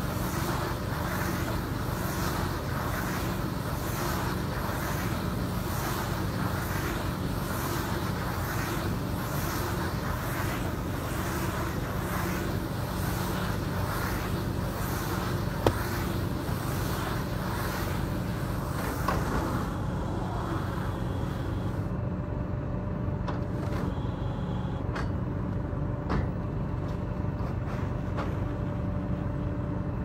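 Corn silage baler-wrapper running: a steady mechanical hum with a swishing that repeats a bit faster than once a second while the bale turns on the wrapper in plastic film. The swishing dies away about two-thirds of the way through, leaving the hum and a few sharp knocks.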